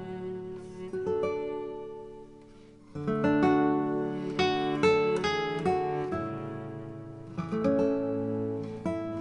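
Background music: acoustic guitar strumming and picking chords, fading briefly about two seconds in before picking up again louder.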